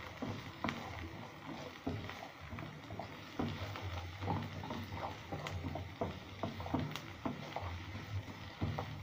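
Yellow plastic spatula stirring sliced carrots, green pepper and onion around a non-stick frying pan: a quick, irregular run of short scrapes and taps against the pan, several a second.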